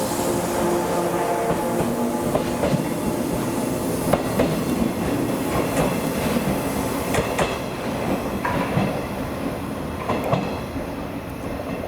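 JR Kyushu Series 415 electric train running on the rails: a steady rumble with scattered wheel clicks over rail joints. A humming tone fades out in the first couple of seconds, and the running noise eases off toward the end.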